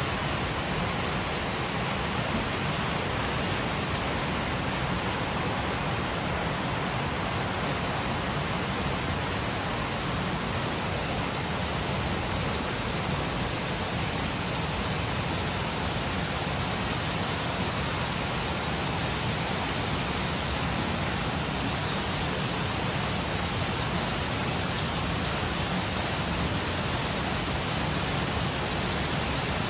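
Rain falling steadily: a dense, even hiss with no let-up.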